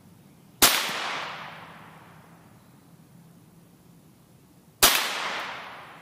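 Two shots from a scoped Ruger 10/22 semi-automatic .22 LR rifle firing Remington Yellow Jacket hypervelocity hollow-point rounds, about four seconds apart. Each is a sharp crack that rings out and dies away over about a second.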